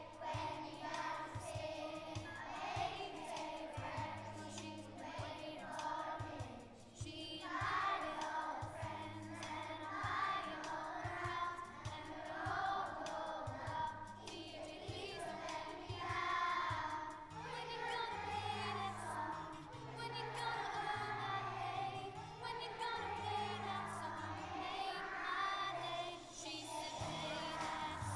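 A primary-school children's choir singing a song, with an accompaniment holding sustained low notes underneath.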